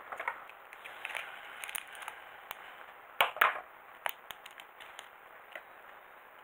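Thin clear plastic bag crinkling and rustling in the hands, with scattered light clicks. The loudest crinkle comes a little over three seconds in.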